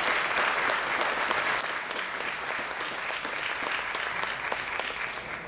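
Audience applauding, a dense mass of many hands clapping that slowly tapers off toward the end.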